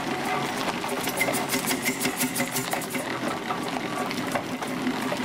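Steam traction engine working, its chimney exhaust beating in a quick, even rhythm of chuffs over the clatter of its motion.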